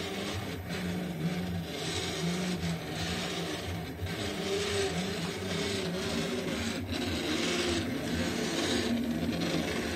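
Delta 3D printer's stepper motors running through a print, humming in short tones that jump to a new pitch with each move of the print head, with a hiss above them.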